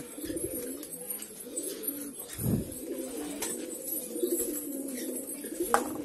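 Caged birds calling with low, wavering calls throughout, with a dull thump about two and a half seconds in and a sharp click near the end.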